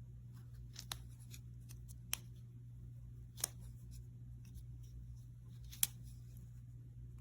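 Four sharp clicks or snips, a second or more apart, over a steady low hum.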